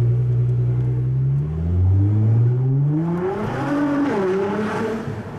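Nissan GT-R's twin-turbo V6 fitted with an IPE aftermarket exhaust, heard from inside the cabin while accelerating. The engine note climbs steadily for about three seconds, then dips and settles lower near the end, as at a gear change or lift-off.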